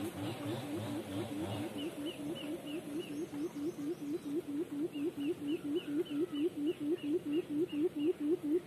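Caged decoy quail calling: a long, rapid series of short low hoots, about four a second, growing louder toward the end. A fainter series of high short chirps comes and goes over it.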